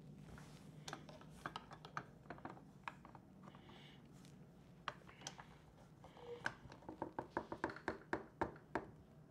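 Faint, irregular small clicks and taps of a slimline pen's parts being handled and pressed together on a pen press, coming faster in the second half.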